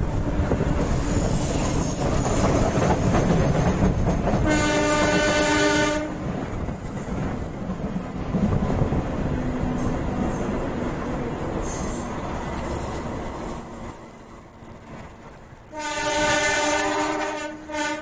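A diesel locomotive's air horn sounds two chord-like blasts about ten seconds apart. The first, a few seconds in, lasts about a second and a half; the second, near the end, lasts about two seconds. They are heard from a coach further back along the train over the running rumble and clickety-clack of the wheels, warning at the unguarded level crossings on this stretch.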